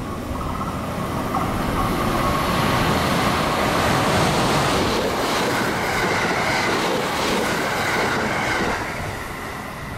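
JR West 681/683-series limited express electric train passing through a station at speed: the rush of wheels on rail and motor noise builds, with a high whine, stays loud for several seconds, then fades near the end.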